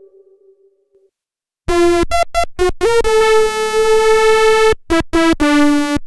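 Arturia Analog Lab V '2 OSCs Panned' synth lead preset, two oscillators panned left and right, playing a bright phrase: four short notes, a note that slides up slightly into a long held tone, then three short notes, the last one lower. Before it, the tail of a soft sine-wave, theremin-like tone fades out in the first second.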